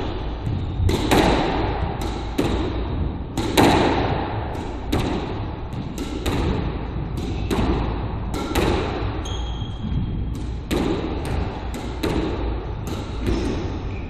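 Squash rally: the rubber ball is struck by racquets and smacks off the court walls about once a second, each hit echoing around the enclosed court.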